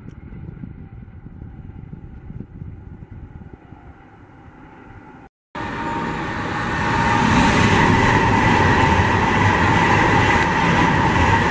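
A distant express train approaching, a steady moderate rumble, then after a brief drop-out about five seconds in a high-speed passenger train rushing past close by: a loud steady rush of wheels and air with a faint steady whine.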